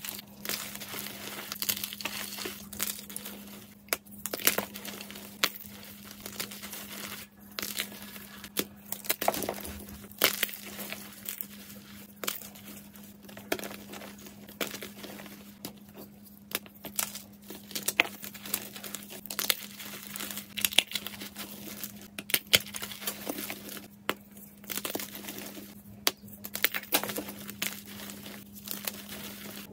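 Hands squeezing and crushing fresh white gym chalk in a bowl: a dense, irregular crunching and crumbling with many sharp little snaps as the blocks break into powder, over a faint steady low hum.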